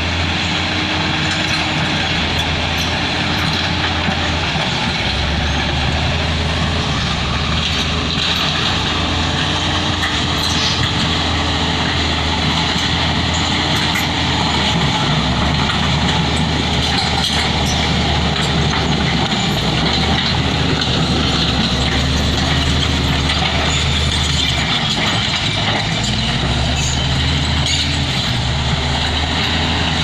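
Crawler bulldozer's diesel engine running steadily under load as its blade pushes rock and soil. The low engine note drops and rises again every few seconds as the load changes.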